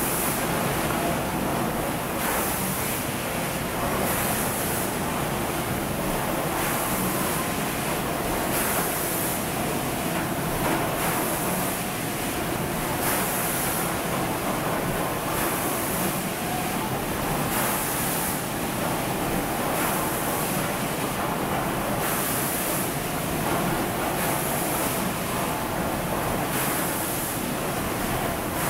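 Bottle shrink-sleeve labeling line with its hot-air heat-shrink tunnel running: a steady machine hiss and hum, with a higher hiss swelling about every two seconds.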